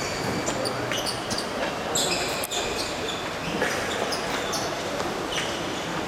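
Sports shoes squeaking on a badminton court floor: many short, high squeals, one after another, over the steady noise of a large sports hall, with a single sharp knock about two and a half seconds in.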